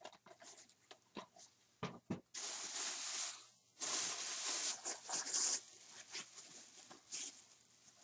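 A gift bag rustling and crinkling in two long stretches as a DVD is pulled out of it, with a few light clicks and knocks of handling around them.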